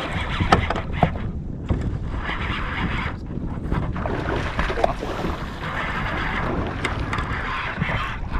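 Wind rumbling on the microphone, with water splashing in irregular patches as a hooked musky thrashes at the surface.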